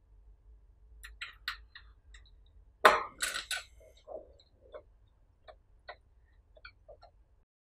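Small metallic clicks and taps of a screwdriver, screws and a hanger loop being fastened onto aluminium LED grow-light bars, with one louder clank about three seconds in.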